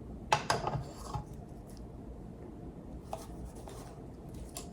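A few light clicks and taps of small stand-mixer gear parts being handled, a quick cluster in the first second and scattered single ticks after.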